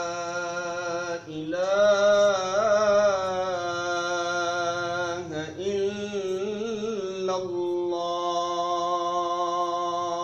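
A man's solo voice in melodic Quran recitation, holding long notes with wavering, ornamented turns in pitch and a short break for breath about a second in.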